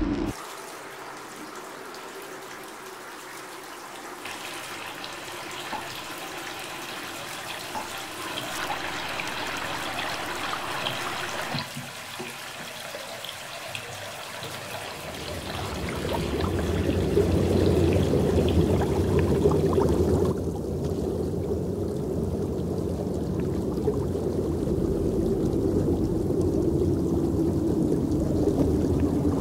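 Bathwater pouring and trickling. About two-thirds in it turns into a louder, muffled low rumble with the high sounds gone: the bath heard from under the surface.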